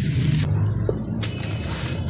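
Dry sand-cement clumps crumbling and crunching on a floor, with a sharp crack a little after a second in, over a heavy low rumble.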